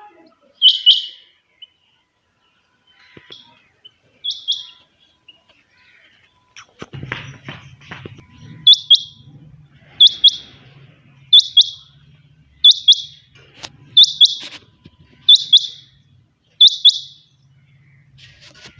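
Quail calling: a sharp call of two quick falling notes, given a few times at first and then repeated steadily about every second and a half.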